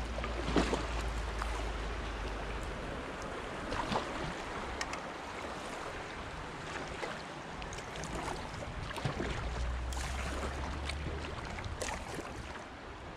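River water rushing and lapping against a kayak hull in a fast current, with scattered splashes and drips from paddle strokes. A low wind rumble on the microphone comes in near the start and again for a few seconds past the middle.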